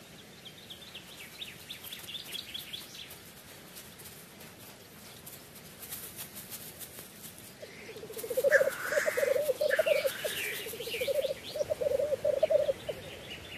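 Male black grouse displaying on a lek: a long bubbling, cooing song starting about eight seconds in, broken by two short hissing sneezes. Faint high twittering of small birds comes before it.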